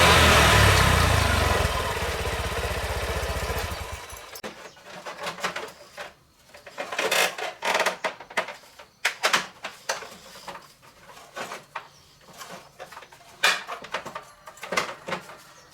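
Honda RSX 150cc motorbike's single-cylinder four-stroke engine running loud, settling to a lower, even idle about two seconds in, then shut off about four seconds in. Scattered short clicks and knocks follow.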